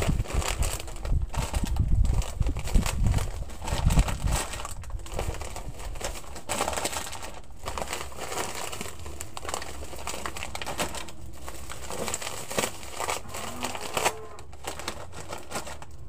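Plastic snack packets crinkling as they are handled and put up on a shop display, with heavier bumps and rustling in the first four seconds and lighter crinkling after.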